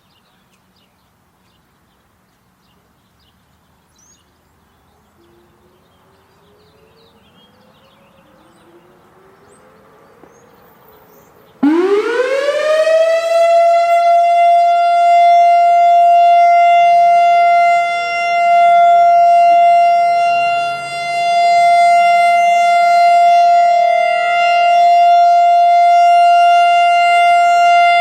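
Analog Whelen WS-3016 electronic warning siren starting its Alert signal about twelve seconds in. The tone sweeps quickly up to a steady high pitch and holds, very loud, dipping briefly in level a couple of times. Before it starts there is only faint outdoor quiet.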